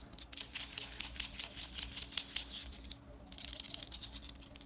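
A rapid, irregular run of small sharp clicks and rattles, pausing briefly a little after three seconds in, then starting again.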